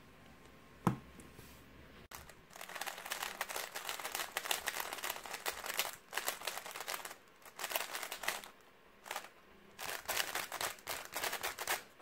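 Stickerless 3x3 speedcube being turned by hand, its plastic layers clicking and clattering rapidly in several bursts with short pauses between, as the cube is scrambled. A single sharp click comes about a second in, before the turning starts.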